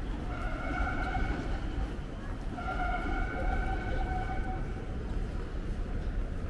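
City street traffic noise, with two long, steady pitched tones of about two seconds each, one right after the other.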